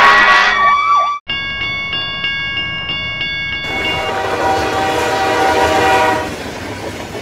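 Dubbed sound effects: a wailing siren that cuts off suddenly about a second in, then a train sound effect with held high tones over regular clicking, turning about halfway through into a rushing noise with a lower held chord that fades near the end.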